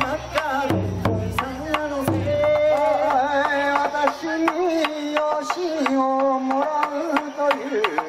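Bon-odori ondo sung live by a man's voice through a microphone, holding and bending long notes, with a large taiko drum keeping time. The drum gives a couple of deep strokes in the first half and many sharp stick clicks throughout.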